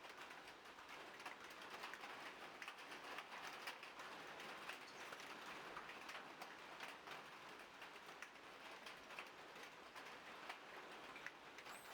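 Faint outdoor ambience: a low hiss with many small, irregular ticks and crackles.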